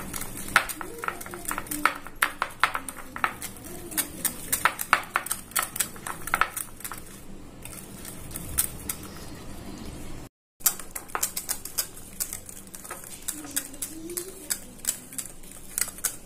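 Wire whisk beating butter cream frosting by hand in a glass bowl: rapid, irregular clicking of the whisk wires against the glass. The sound drops out briefly about ten seconds in.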